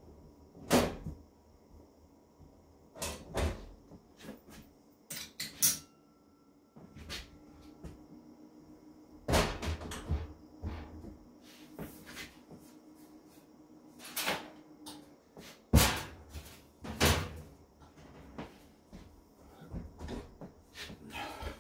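A series of sharp, irregularly spaced knocks and clanks of a sheet-metal electrical panel cover being handled and taken off, the loudest about three-quarters of the way through.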